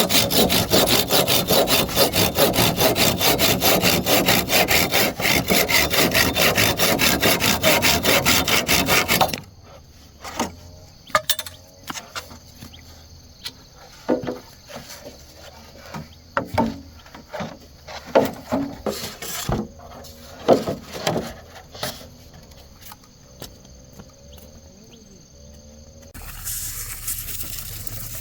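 Handsaw cutting bamboo with fast, steady strokes, which stop about nine seconds in. After that come scattered light knocks and taps, then a rushing noise near the end.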